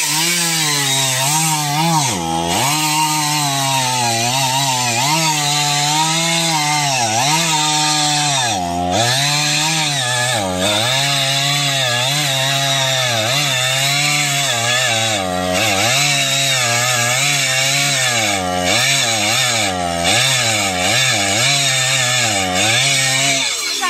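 Stihl MS 461 two-stroke chainsaw cutting into a thick tree trunk under full throttle. The engine pitch dips and recovers again and again as the chain bites into the wood, then falls away near the end.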